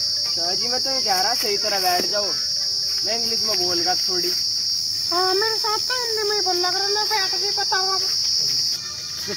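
Steady high-pitched insect chirring, cricket-like, that stops abruptly near the end. A person's voice sounds over it throughout, with no clear words.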